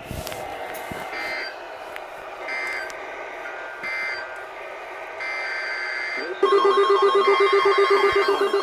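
Emergency Alert System digital data bursts: three short raspy bursts about a second apart, the end-of-message code, then one longer header burst. About six and a half seconds in, a loud alert tone starts and stays steady, with a pulsing warble.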